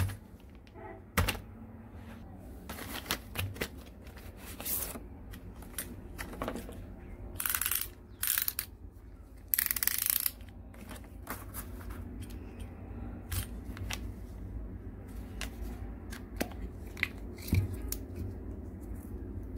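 Hands unpacking a snap-off utility knife: the plastic blister packaging crackles and rustles in a few longer bursts, with scattered clicks and taps of the knife and plastic blade case being handled.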